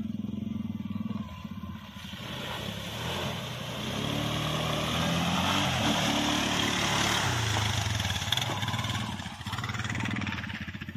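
Quad bike (ATV) engine running and revving as it drives through a muddy puddle, with water and mud splashing. It grows louder from about two seconds in, is loudest as it goes close by, and fades near the end.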